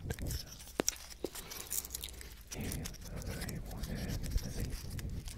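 Dry pine cone turned and rubbed in the fingers close to the microphone, its scales crackling with many small sharp clicks.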